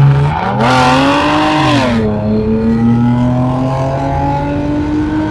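Lexus engine and exhaust under hard acceleration. The note climbs for over a second with a loud raspy edge, drops sharply at a gear change about two seconds in, then holds a steady, slowly climbing drone.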